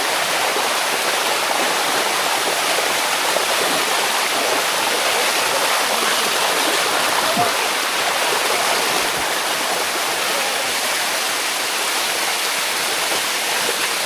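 Water running steadily down a shallow limestone waterfall, an even rushing and splashing close by.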